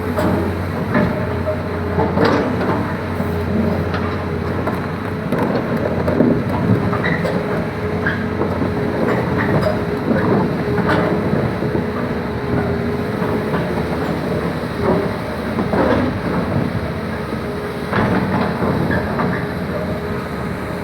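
Doosan DX380LC excavator at work: its diesel engine running steadily under load with a constant whine, over irregular clanks, knocks and scraping from the bucket working against marble blocks.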